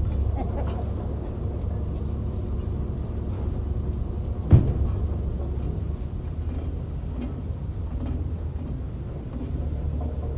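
Heavy crane engine running steadily with a low rumble, with one sharp knock about four and a half seconds in.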